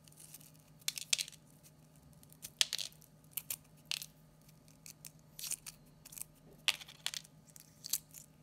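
Shell of a hard-boiled egg crackling and snapping in small irregular clicks as fingers peel it away from the egg, over a faint steady low hum.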